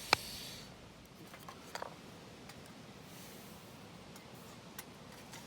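Firewood stick being split: one sharp crack just after the start, then a few light clicks and ticks of the wood pieces.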